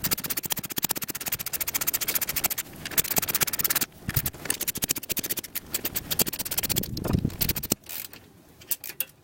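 Ratchet wrench on the Jeep XJ's 15mm track bar bolt, clicking rapidly as it is turned, with a short pause near the middle; it stops about a second before the end, followed by a few light knocks.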